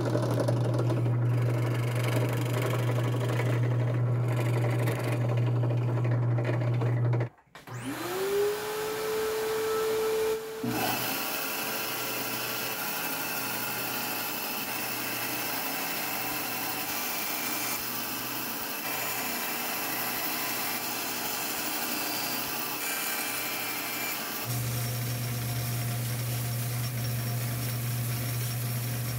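A sequence of woodworking power tools on a cypress sheath board. A drill press drills with a deep steady hum, then a bandsaw motor spins up with a rising whine about eight seconds in and runs steadily while cutting. About three-quarters of the way through, a belt sander takes over with a deeper hum.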